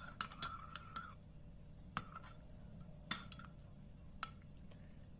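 Faint clinks of a spoon against a glass of milk as butter is added: a few light taps in the first second with a brief ringing tone, then three sharper clinks about a second apart.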